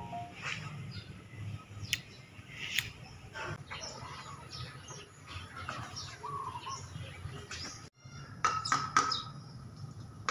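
Scattered short bird chirps over a faint, steady low outdoor hum, the sound dropping out for a moment about eight seconds in.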